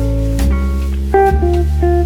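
Background music: plucked guitar playing a melody of short notes over a steady bass line.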